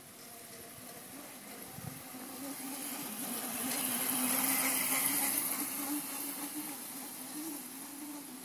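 Small electric dirt bike's motor whining steadily, its battery running low. It grows louder as the bike passes close about four seconds in, then fades as it rides away.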